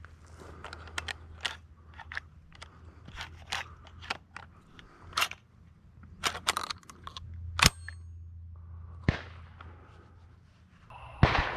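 A string of short clicks and crunches of handling noise picked up by a gun-mounted camera, with a couple of sharper cracks in the middle and a loud shotgun bang with a ringing tail near the end.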